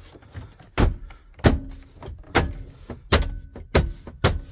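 A series of about six sharp knocks, roughly one every two-thirds of a second, some with a short ring after them, as the plastic steering-column cover pieces of a 2001 Chevy Silverado are pushed and tapped into place.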